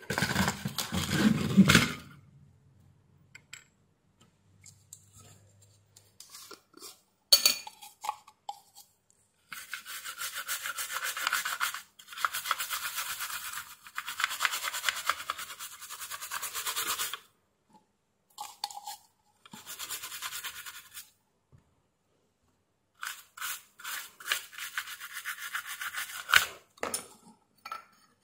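A toothbrush scrubbing the surface of a printed circuit board, its bristles rasping in quick back-and-forth strokes. The brushing comes in several spells of a few seconds each. It is preceded by a few loud knocks as the board is handled and turned over at the start.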